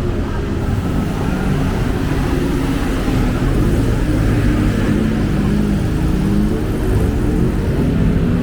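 Busy city road traffic: vehicle engines running past in a steady, loud rumble.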